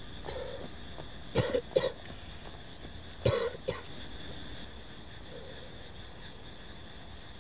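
A person coughing: two pairs of short coughs, the first about a second and a half in and the second about three seconds in. A steady high-pitched drone runs underneath.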